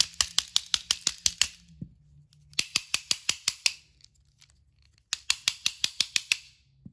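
A battery-powered toy engine that will not run properly, its mechanism making rapid, even clicking, about six clicks a second, in three bursts of one to one and a half seconds, over a faint low hum.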